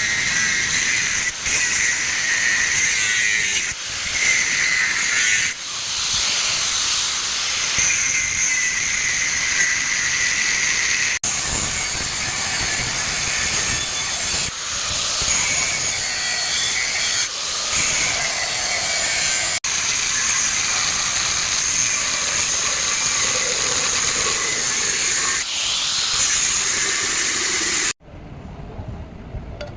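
Loud, steady hiss of gas rushing from a nozzle or torch during refrigerator compressor repair work, broken by brief drop-outs every few seconds and stopping abruptly near the end.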